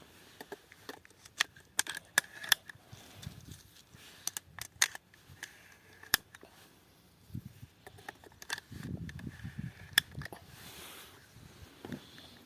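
Semi-automatic shotgun being loaded: a string of irregular sharp metallic clicks and clacks as shells are pushed into the magazine and the action is handled, some with a brief metallic ring.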